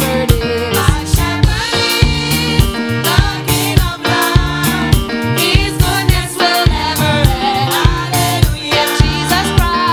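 Gospel praise song: a woman's lead vocal through a microphone over a steady drum beat and bass.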